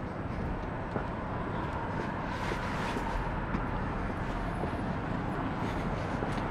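Steady city street background noise at night, a low hum of distant traffic.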